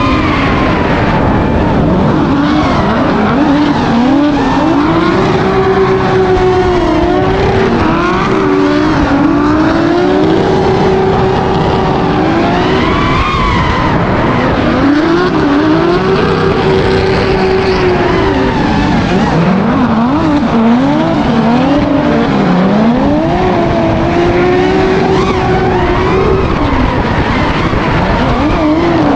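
Car engines revving hard, held high and dropping and climbing again every few seconds, over a steady hiss of tyre noise.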